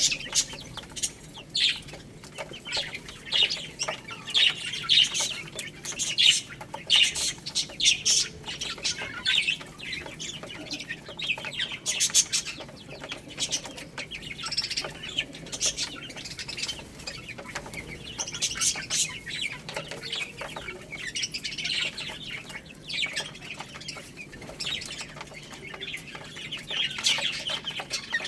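Baby chicks peeping constantly in short, high calls, with many sharp clicks mixed in.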